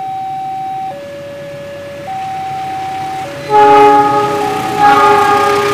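Level-crossing warning alarm alternating between two tones, each held about a second. About three and a half seconds in, a diesel locomotive's multi-note horn sounds loudly twice as the train reaches the crossing.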